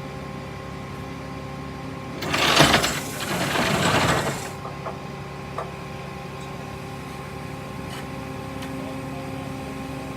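A vehicle engine running steadily at a constant speed, with a loud rushing noise of about two seconds a couple of seconds in.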